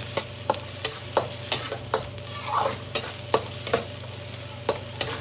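Metal spatula scraping and clacking against a steel wok about three times a second, over a steady sizzle of green onion and shiitake mushrooms frying slowly in hot oil.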